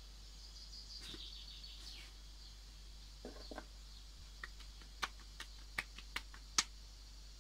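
Hands patting and slapping a ball of bread dough flat between the palms: a run of sharp pats, about two or three a second, in the second half. A faint bird call sounds about a second in.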